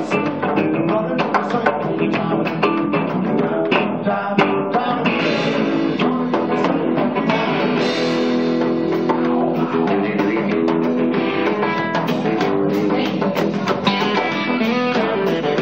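Live rock band playing: electric guitar to the fore over bass guitar and drum kit, with a steady run of drum hits.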